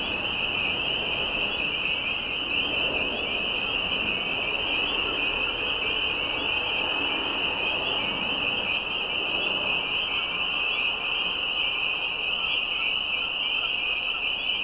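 A dense chorus of spring peepers, many frogs giving short, high, rising peeps that overlap into one steady shrill wall of sound, over a fainter, lower background noise.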